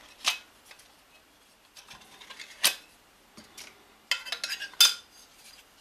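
Clicks and light clinks of a powder-coated aluminium heatsink cover and its plastic inlays being handled as the coloured inlay is changed. There is a sharp click about a quarter second in and another near the middle, then a quick run of ringing clinks about four seconds in.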